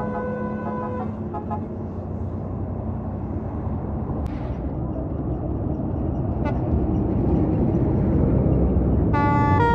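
A tour bus's musical 'basuri' horn holds a chord of several tones that stops about a second in. Then the bus engine and road noise grow steadily louder as a bus draws near, and near the end a basuri horn starts up again, playing a tune of changing notes.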